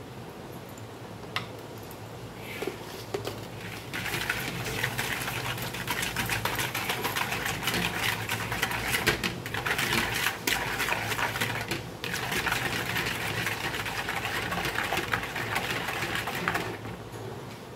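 Wire whisk beating yogurt and sugar in a plastic bowl: a rapid, steady clatter of the wires against the bowl that starts about four seconds in, breaks off briefly twice, and stops near the end. A few light taps come before it.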